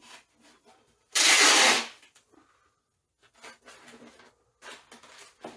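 Masking tape ripped off the roll in one long, loud pull about a second in. Around it, yellow masking paper crinkles and rustles as it is pressed along a plastic bumper cover.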